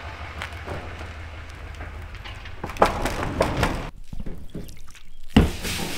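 A vehicle engine running with a steady low hum, then several loud knocks and thunks from about three seconds in.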